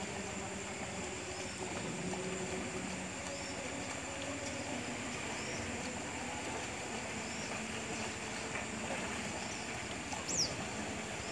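Steady rush of a fast-flowing river, with a small bird giving a short high chirp every second or two and one sharper call near the end.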